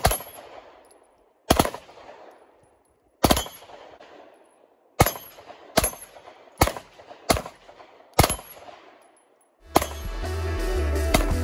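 Pistol firing eight shots, each followed by a rolling echo. The first three come about a second and a half apart, the last five quicker, under a second apart. Music with a heavy bass beat comes in near the end.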